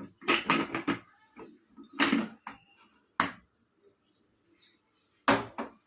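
Kitchen clatter of utensils and dishes being handled: a quick run of knocks and clinks in the first second, then single sharp clinks about two and three seconds in and a pair near the end.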